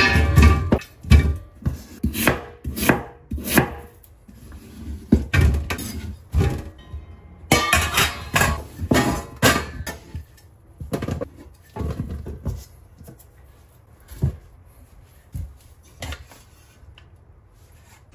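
Cleaver slicing through raw sweet potatoes and knocking down onto a bamboo cutting board: an uneven series of chops, a couple a second, that thins out toward the end.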